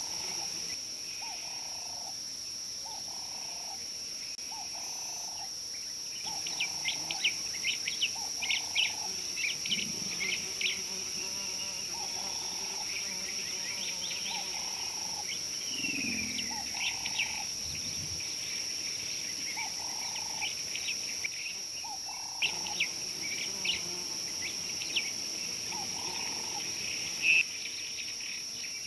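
Bush ambience: a steady high insect drone, birds chirping, and a short lower call that repeats about once a second in runs.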